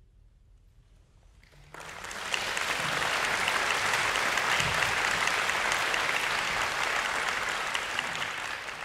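Audience applause breaks out after a short hush, starting about two seconds in, swelling quickly and then holding steady.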